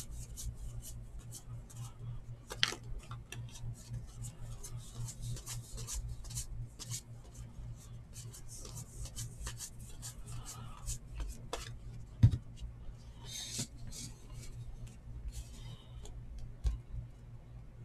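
Cardboard baseball trading cards flipped and slid through by hand: a run of soft, irregular card-on-card flicks and rubs, with a sharper tap about twelve seconds in, over a low steady hum.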